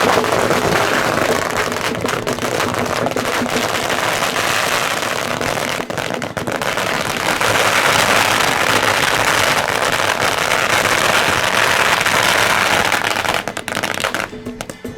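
Long strings of firecrackers going off in a continuous, dense crackle of rapid bangs, thinning out near the end.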